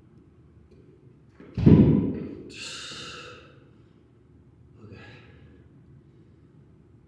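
A heavy thump about a second and a half in, followed by a man's long, heavy exhale and a fainter breath a couple of seconds later.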